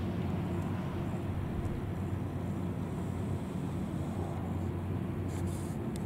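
Steady low engine hum, like a vehicle idling, with a few faint clicks near the end.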